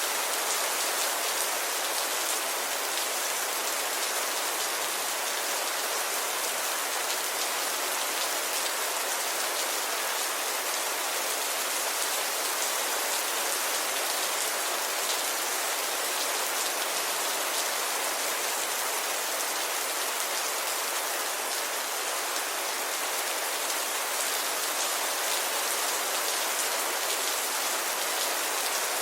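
Steady rainfall: an even hiss of many drops falling on a surface, with fine droplet patter and no lulls.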